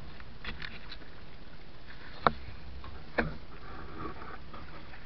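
Two sharp knocks about a second apart on a small wooden boat, over a steady low background of wind and water.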